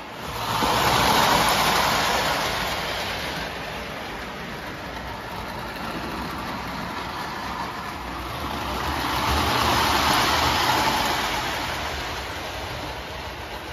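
Electric O scale tinplate toy train running on its track, wheels rumbling and rattling on the rails; it passes close twice, loudest about a second in and again around ten seconds in.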